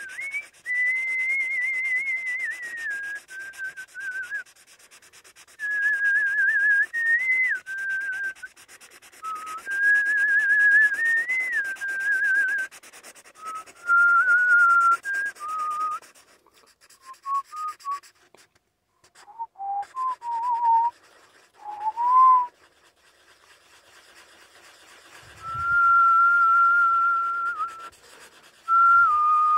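A person whistling a wandering tune in short phrases, stepping between notes, with a long held note near the end. Underneath is the dry scratching of a Sharpie marker shading on paper.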